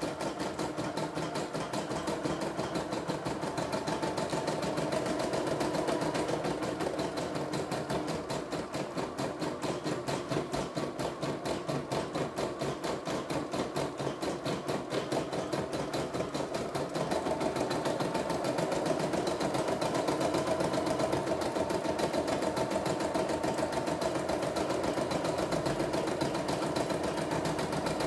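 CNY E960 computerized embroidery machine stitching a design, its needle going in a fast, even rhythm of strokes. It gets slightly louder a little past halfway.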